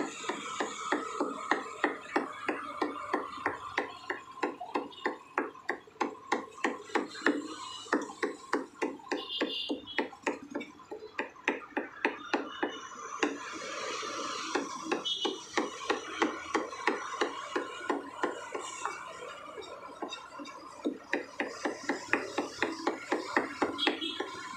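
Butcher's cleaver rapidly chopping mutton on a wooden chopping block, mincing the meat with about three sharp knocks a second. The strokes go briefly softer about halfway through.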